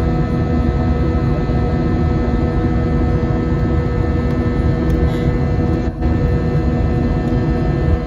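Cabin noise of a Volaris Airbus airliner climbing after takeoff, heard from a forward window seat: a steady jet-engine rumble with several steady whining tones held above it. It dips briefly about six seconds in.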